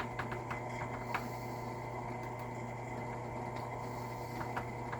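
Scattered light clicks and taps from handling a shotshell hull while adding shot buffer during hand-loading, over a steady low hum. The clicks come in clusters in the first second and again near the end, with a quieter stretch between.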